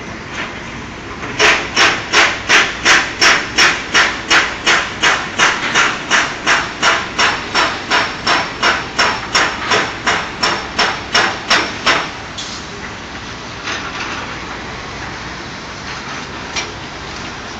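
Hammering: a steady run of about thirty sharp strikes, roughly three a second, that starts about a second and a half in and stops after about ten seconds, over a steady background hiss.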